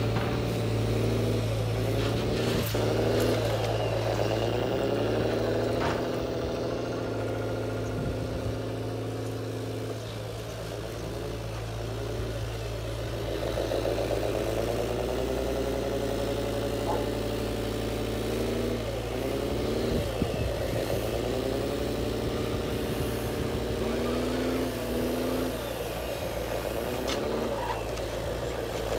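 A large hydraulic RC excavator working, its pump and motors whining in pitch that sags and rises every few seconds as the boom and bucket move under load, over a steady low hum.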